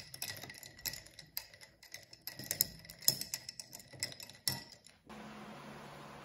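Ice cubes and a straw clinking against a drinking glass as iced coffee is stirred, a quick irregular run of small ringing clicks. The clinking stops about five seconds in, giving way to a steady low hum of room noise.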